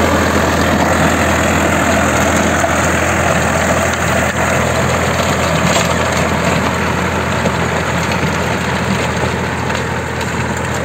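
Solis 4215 E tractor's diesel engine running steadily.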